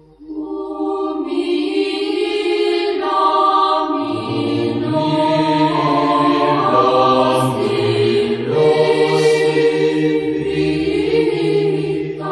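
Orthodox church chant sung by a choir of voices without instruments, holding long drawn-out notes over a steady low drone; a lower voice part comes in about four seconds in.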